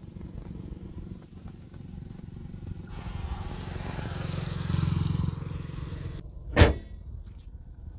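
Small three-cylinder petrol engine idling with a low steady rumble, the Wagon R's 998 cc K10B. A rushing noise swells in the middle and cuts off suddenly. A single loud thud of the bonnet being shut comes about two-thirds of the way through.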